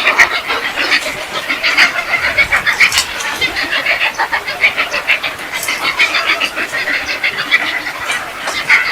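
A flock of birds calling together in a tree, many short overlapping calls and chirps in a constant chatter.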